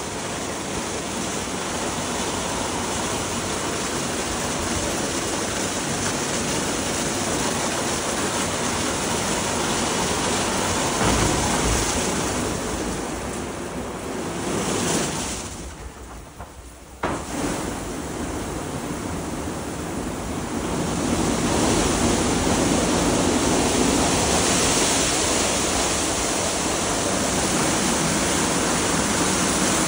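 Gantry car wash in operation: rotating brushes sweeping and water jets spraying, a steady rush of water. It drops quieter for a couple of seconds about halfway through, comes back suddenly, and grows louder again later on.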